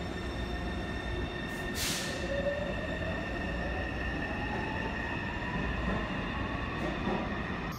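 Taipei MRT train pulling out of an underground station: the traction motor whine rises steadily in pitch as it accelerates, over steady high tones and wheel rumble. A short hiss of air comes about two seconds in.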